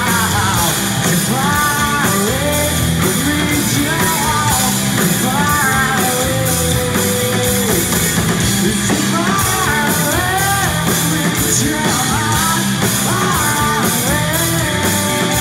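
Live rock band playing loud: a man sings the lead over electric guitars and a steady drum beat, holding some notes long.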